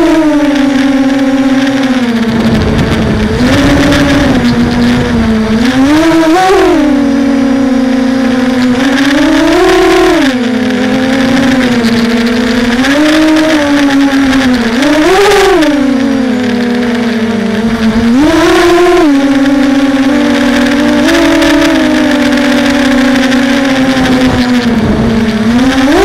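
Hexacopter's electric motors and propellers whining with a steady buzzing hum whose pitch swoops up and falls back every few seconds as the throttle is worked against gusts. Low wind rumble on the microphone at times, loudest around two to four seconds in and near the end.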